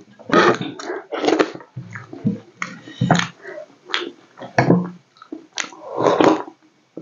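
Close-miked eating sounds: wet chewing and lip-smacking in irregular bursts as fried vegetables are eaten by hand, then a longer slurp from a bowl near the end.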